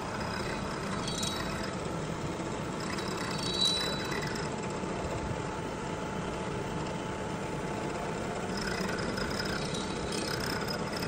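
Milling machine running with a steady hum and hiss, with a brief sharp high sound about three and a half seconds in.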